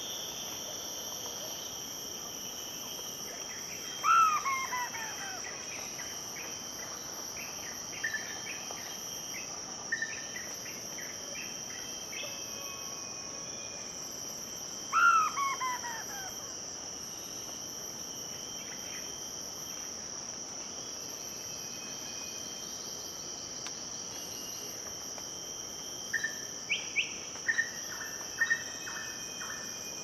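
Blyth's frogmouth calling twice, about 11 seconds apart, each call a loud note falling in pitch over about a second. Under it runs a steady high-pitched drone of rainforest insects, with a few short chirps near the end.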